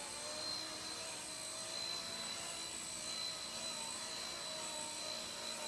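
Blade Nano CP S micro RC helicopter hovering, its small electric motors and rotors whining steadily, on a battery that is almost flat.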